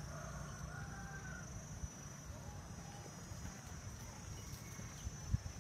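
Steady high-pitched drone of insects, with a few faint bird calls in the first couple of seconds and a low rumble underneath.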